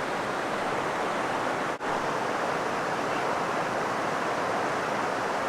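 Creek water running with a steady, even rushing hiss, broken once by a brief dropout near two seconds in.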